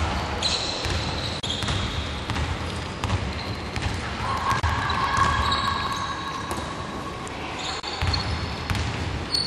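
Basketball dribbled on a hardwood court in repeated thuds, with short high squeaks from sneakers on the floor.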